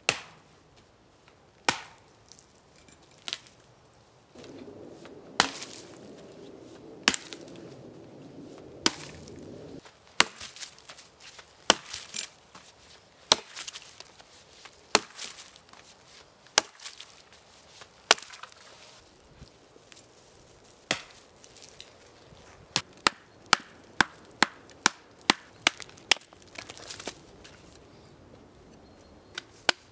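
Axe chopping into a fallen pine branch: sharp single strokes into the wood every one to two seconds. Near the end comes a quicker run of lighter strikes, about three a second.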